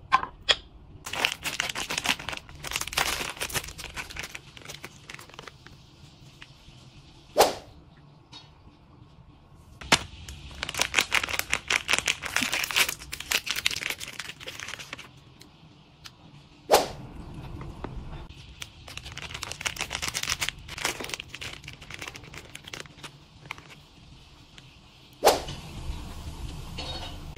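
Plastic snack wrappers crinkling and tearing open in several long spells of dense crackling, with three separate sharp knocks in between.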